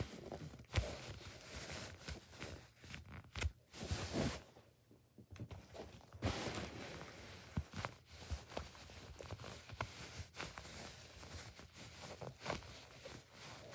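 Hands squeezing and handling soft foam squishy toys: irregular scratchy rustling and small taps, with a quieter pause about five seconds in.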